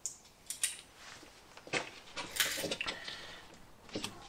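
A few scattered metallic clicks and clinks as gloved hands handle and fit bolts and parts on a car's front suspension.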